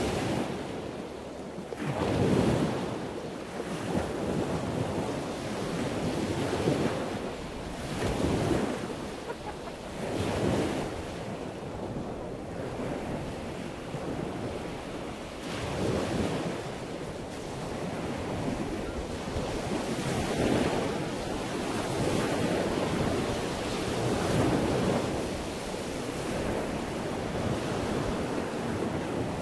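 Wind buffeting the microphone: a rushing noise that swells and eases in gusts every couple of seconds.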